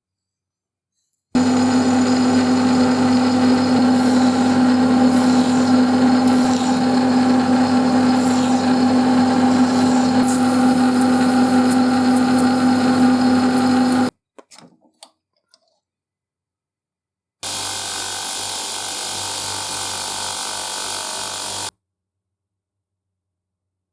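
A workshop power tool running steadily with a strong even hum for about twelve seconds, then cut off suddenly. After a few faint clicks and a pause, a quieter machine runs steadily for about four seconds and cuts off.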